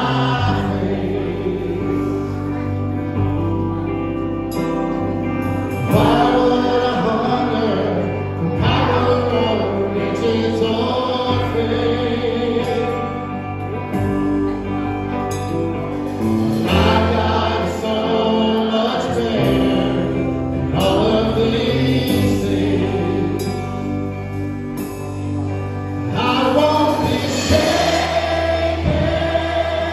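Live contemporary worship music: a band with keyboard, guitar and drums playing as a lead singer and the congregation sing along together, a full sound of many voices over sustained bass notes.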